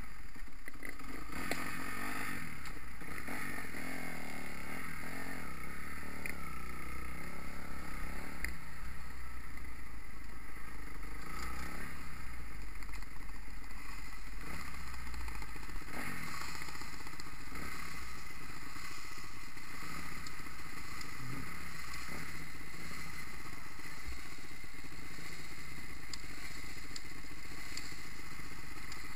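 Kawasaki KX250F motocross bike's single-cylinder four-stroke engine running steadily at low revs, with no hard revving.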